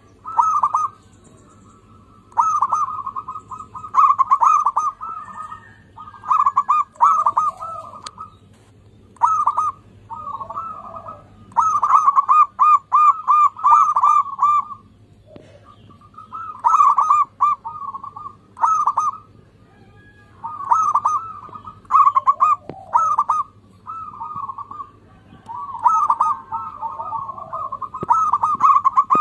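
Zebra dove (perkutut) singing: runs of short cooing notes in quick succession, repeated in bouts every second or two.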